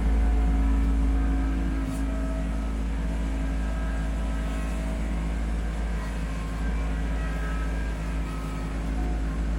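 Kubota B2650 tractor's three-cylinder diesel engine running steadily while the BH77 backhoe is worked, a little louder in the first second or two.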